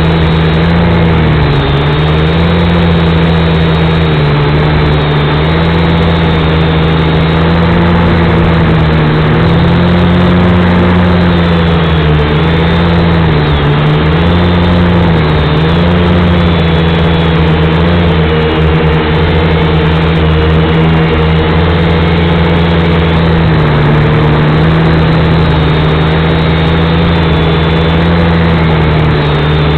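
Hubsan V222 quadcopter's motors and propellers whirring loudly and steadily in flight, their hum wavering up and down in pitch as the throttle changes.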